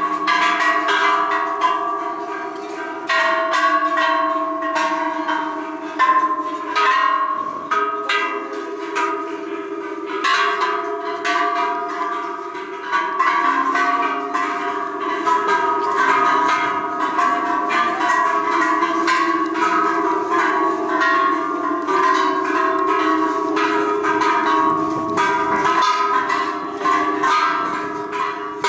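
A row of hanging metal Buddhist temple bells struck again and again, with many strikes throughout so that several ringing tones of different pitch sound together and overlap.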